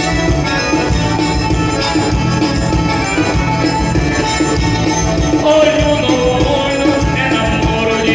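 Forró dance music with a steady beat and jingling percussion, a melody line rising over it about two-thirds of the way through.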